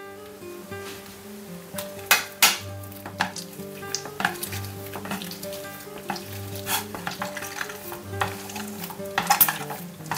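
A halved orange twisted and pressed on a manual citrus juicer's plastic reamer, giving wet squishing and scraping with a few sharper scrapes. Soft background music with held notes plays underneath.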